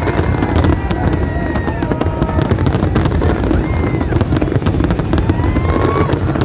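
Fireworks display: a dense, continuous barrage of bangs and crackles over a constant low rumble, with whistling tones rising and falling through it.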